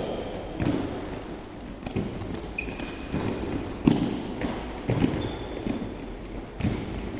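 Futsal balls bouncing and being kicked on an indoor court, with irregular thuds, footfalls and a few brief shoe squeaks, in a large sports hall.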